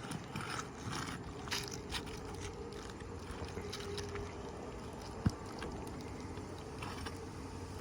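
A pry tool scraping and clicking under asphalt shingles as roofing nails are worked loose, with one sharp knock about five seconds in. A steady background rumble runs underneath.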